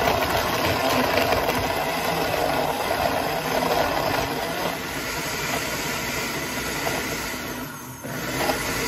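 Countertop blender motor running, churning ice and frozen fruit into a thick smoothie, with a steady grinding whir. The sound drops briefly about eight seconds in and then picks up again.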